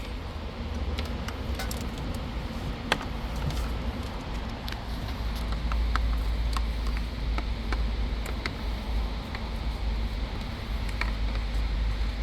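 Scattered light clicks and rustling from wiring being handled, over a low steady rumble.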